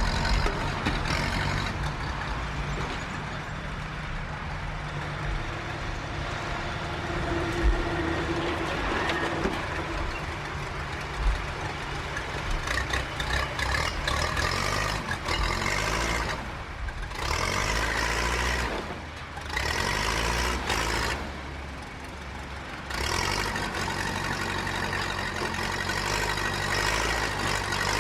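Bulldozer's diesel engine running steadily under work, with a couple of sharp knocks and a few brief dips where the engine eases off.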